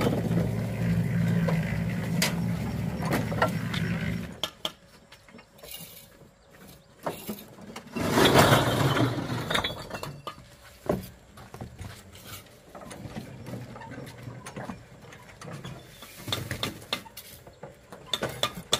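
A motor runs steadily, then stops abruptly about four seconds in. After that come scattered knocks and clicks, with a short scraping rush about halfway through.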